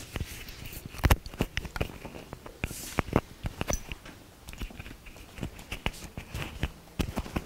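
Handling noise of a clip-on lapel microphone being fastened onto clothing: irregular sharp clicks and knocks with rubbing between them.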